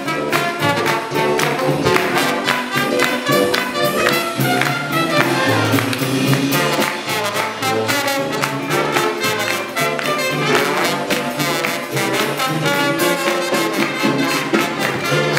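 Live jazz brass band playing a fast swing tune: trumpet and other horns over a sousaphone bass line and drums, with a steady, driving beat.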